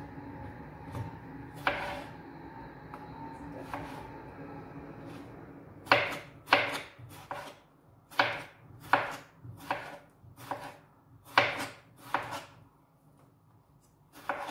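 Kitchen knife slicing a cucumber on a cutting board: a few scattered cuts, then a quick run of about a dozen knife strikes on the board, roughly two a second, stopping a couple of seconds before the end.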